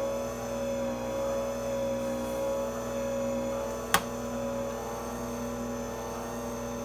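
A steady electric hum with a slight waver in pitch, like a small motor running. One sharp click about four seconds in.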